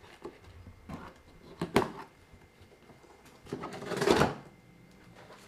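A knife slitting packing tape on a cardboard box: a few sharp clicks and taps, then about four seconds in a longer tearing rasp as the taped flap is cut and pulled open.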